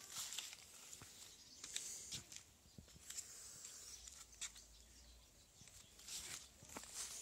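Near silence with faint, irregular rustles and soft ticks, like footsteps on grass and paving.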